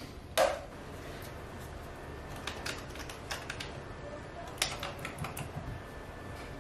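A sharp wooden knock about half a second in, then scattered light clicks and taps in two short runs, like wood and tools being handled on a bench.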